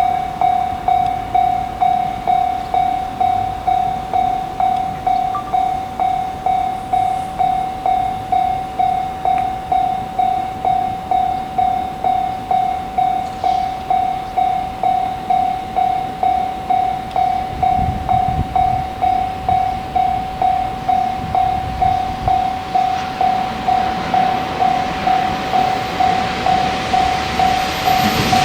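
Japanese railway level-crossing warning alarm ringing, a single pitched ding repeating evenly about twice a second. Over the last few seconds the rumble of an approaching train grows beneath it.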